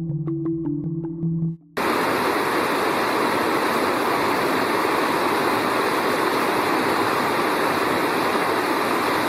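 Background music for the first second and a half, then the loud, steady rush of a mountain creek's flowing water, cutting in abruptly.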